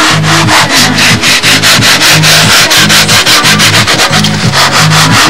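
Hand sanding with a long wooden sanding block pushed back and forth along a model airplane wing plug: sandpaper rubbing in quick, even, continuous strokes. This is the fairing stage, taking down high spots on the plug before the mold is laid up.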